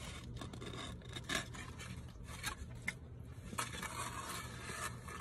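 Paper burger wrapper being handled, rustling and scraping with scattered crinkles and clicks, the crinkling thickest about three and a half seconds in.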